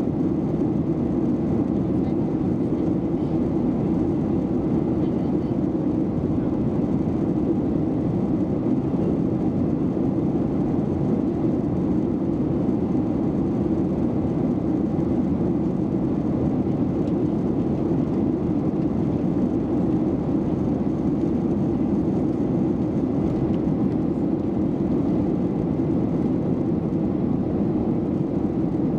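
Airliner engines and rushing air heard inside the passenger cabin during the climb after takeoff: a steady low rush that does not change.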